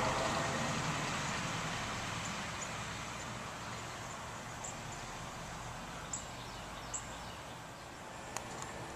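A 1958 Chevrolet Impala's engine fading as the car drives away, leaving a low background hum. Birds chirp briefly several times.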